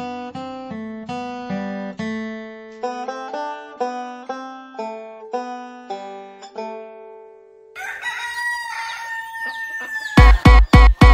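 A plucked-string tune, note by note. About eight seconds in it gives way to a rooster crowing for about two seconds, and then a loud electronic dance beat with heavy kicks, about four a second, cuts in near the end.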